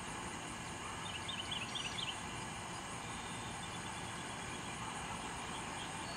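Steady rushing road and wind noise of a bicycle ride, with a few faint high chirps about a second in.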